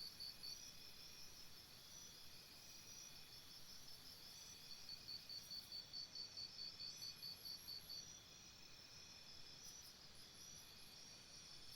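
Faint jungle insect chorus: rapid, evenly pulsed high chirping, about five chirps a second, that stops and starts, with a thinner, higher trill joining in now and then.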